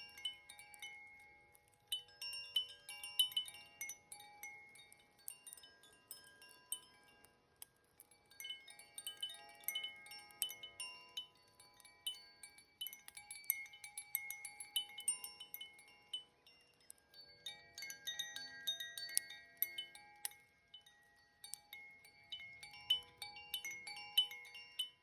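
Koshi chime ringing, its tuned rods struck by the clapper in irregular clusters of bright, overlapping tones, with brief quieter lulls between clusters, over the crackling of a fire.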